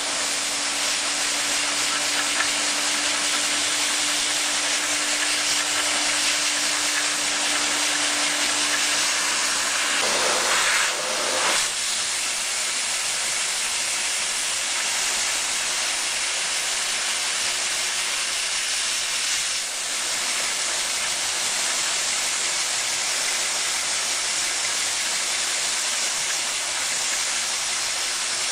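Steady rushing hiss of air driving a home-built Lego vacuum piston engine. A low steady hum under it stops about nine seconds in, and the rush briefly swells louder just after.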